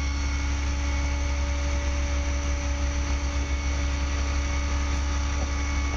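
A large mobile crane's engine running steadily while hoisting a rooftop HVAC unit: a constant low rumble with a steady hum over it.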